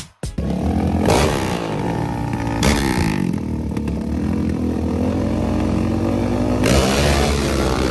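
ATV engines revving hard under acceleration. The pitch climbs and drops repeatedly as they run up through the gears, with surges about a second in, near three seconds, and again near seven seconds.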